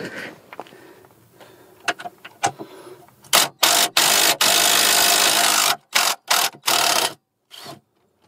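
Ryobi cordless impact wrench hammering at a seized brake caliper carrier bolt in several loud bursts, the longest about a second and a half, starting about three seconds in after a few light clicks and knocks.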